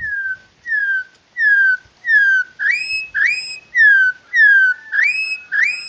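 A songbird singing a run of loud, clear whistled notes, about one every half second. Most notes slide down; a few rise and then hold.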